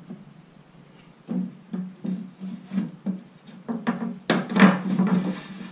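Oak stair tread being pushed by hand into the routed housings of closed stair stringers: a string of short wooden knocks, then a louder burst of wood scraping against wood about four seconds in.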